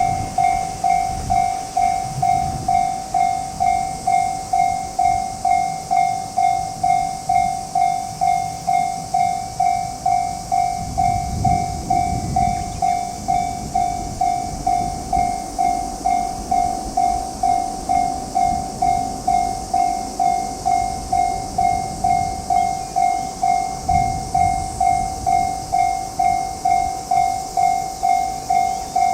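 Japanese railway level-crossing warning bell ringing, an electronic ding repeating evenly just under twice a second as the crossing is closed for an approaching train.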